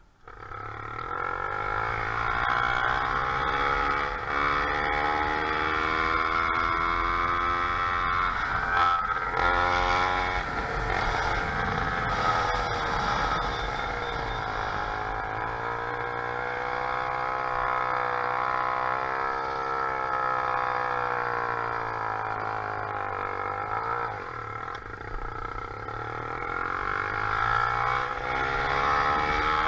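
Motorized bicycle's small engine running while riding, its pitch rising and falling slowly with throttle and road speed; it starts abruptly at the outset.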